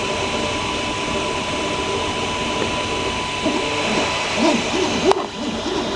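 Creality CR-10S 3D printer running mid-print: a steady fan hum, with stepper motors whining in tones that glide up and down from about halfway as the print head moves. A single sharp click about five seconds in.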